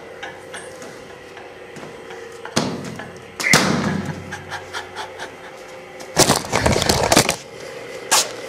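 A few sharp knocks and thuds, then a rapid clatter of knocks lasting about a second, starting about six seconds in, and one last sharp click near the end.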